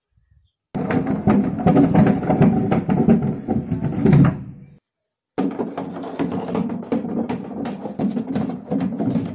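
Plastic crates toppling one onto the next in a domino chain: a fast, continuous run of hollow plastic clacks. It stops suddenly about five seconds in and resumes half a second later.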